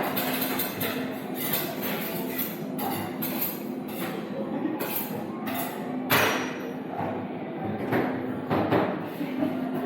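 Irregular knocks and clicks, a few louder thuds among them, over a faint steady hum.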